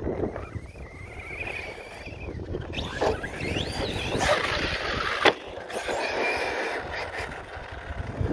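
Arrma Outcast RC truck's Surpass Hobby brushless electric motor whining as it is driven, its pitch rising and falling with the throttle, over wind on the microphone. A sharp click about five seconds in.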